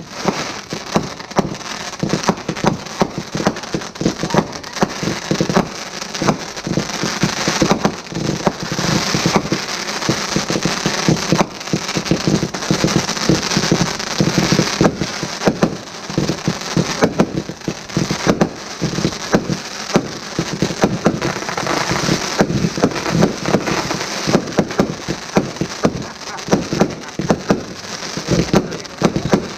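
Fireworks going off in rapid succession: a dense, unbroken stream of pops, bangs and crackling bursts as shells and comets fire and break overhead.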